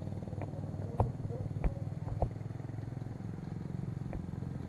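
A few sharp cracks of airsoft gunfire: one about a second in, two more close together near two seconds, and a fainter one near four seconds. A steady low rumble runs underneath.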